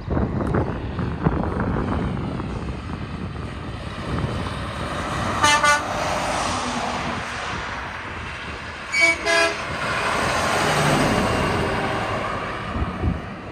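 Semi trucks driving past close by, engine and tyre noise swelling and fading, with a truck air horn sounding two quick double toots, about five and a half and nine seconds in.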